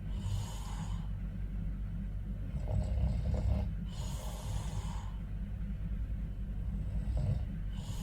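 A man snoring in his sleep: a low snore followed by an airy, hissing breath, repeating about every four seconds over a steady low hum.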